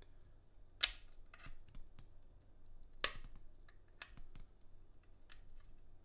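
Metal switch puller prying a Kailh Choc low-profile switch out of a keyboard: a string of small clicks and ticks, with two sharper clicks about two seconds apart.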